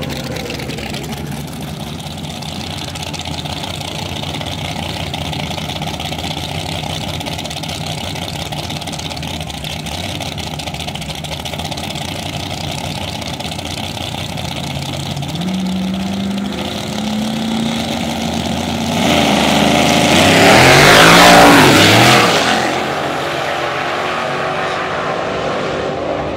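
Drag-race engines idling at the starting line, the note stepping up as they stage. Then a full-throttle launch, much louder, with the pitch sweeping up and down through the gears as the vehicles pass. It drops back to a steadier, distant engine sound as they go down the track.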